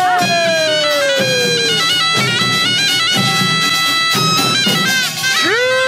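Korean folk-band music: a reedy wind instrument, most likely a taepyeongso shawm, plays a melody that slides and steps between long notes over drum strokes about once a second. Near the end a new long, held note begins.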